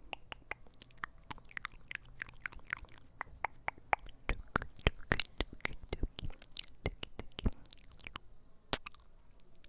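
Close-miked ASMR trigger sounds: a dense, irregular run of sharp clicks and crackles, loudest in the middle, with a brief pause near the end.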